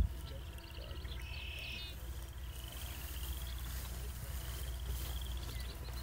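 Frogs trilling in a marsh: repeated pulsed trills, each about a second long and some rising in pitch, over steady wind rumble on the microphone. A brief thump right at the start.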